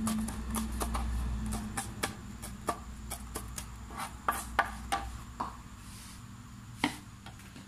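Kitchen knife chopping red chillies on a cutting board: quick blade knocks, about four a second at first, then slower and sparser, with one louder knock near the end.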